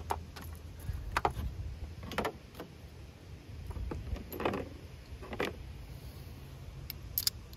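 Scattered light clicks, taps and scrapes of hand tools and a compression-tester hose being handled in an engine bay, as a ratchet with extension and spark plug socket is set into a plug well, over a steady low hum.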